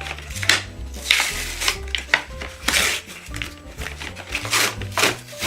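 Background music with a low bass line, overlaid by repeated short clicks and rustles of something being handled.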